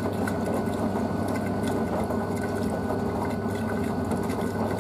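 Blomberg WNF9448 front-loading washing machine tumbling its load during the wash: a steady drum-motor hum with wet laundry sloshing and splashing in the water.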